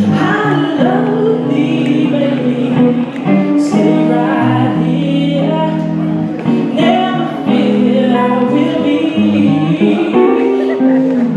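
A woman singing live into a microphone, with instrumental accompaniment underneath.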